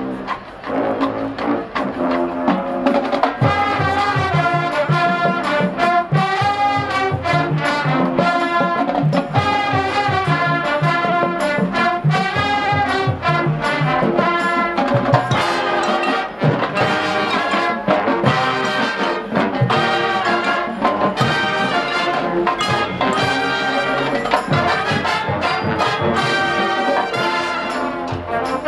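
Marching band playing a jazz arrangement: brass (trumpets and trombones) with drums, softer for the first couple of seconds, then the full band comes in louder.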